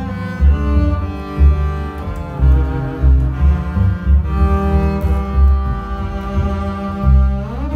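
Several bowed double bass parts played together, all recorded by one player: held notes over a low line with regular accented strokes, and a slide upward in pitch near the end.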